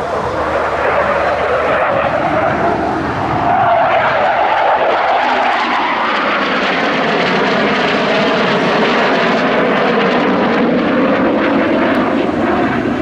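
The twin EJ200 turbofan engines of a Eurofighter Typhoon fighter jet in a close display pass: loud, continuous jet noise that peaks about four seconds in, with a tone that falls in pitch as the aircraft goes by, then holds steady as it climbs away.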